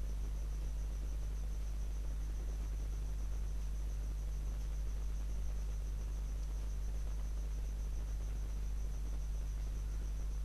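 Steady background noise with no speech: a low hum with hiss, and a faint high tone pulsing rapidly and evenly throughout.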